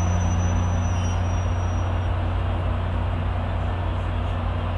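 Metrolink diesel-electric passenger locomotive idling: a steady deep hum, with a faint high whine over it for the first two seconds.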